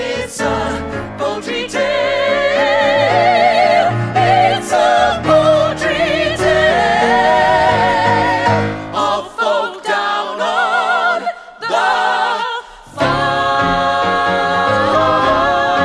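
A group of voices singing a musical-theatre number over accompaniment, the sung notes carrying wide vibrato. The lower accompaniment drops away for a few seconds near the middle. It ends on a long held chord.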